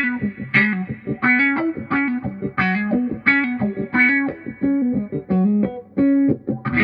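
Electric guitar played through a Vox 846 hand-wired wah pedal at its stock settings, a run of short, clipped funky notes and chord stabs. A held chord starts ringing right at the end.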